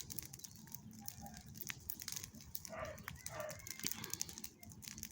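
Garden bonfire of dry grass and brush crackling, with many small sharp pops. Two faint short calls come a little past the middle.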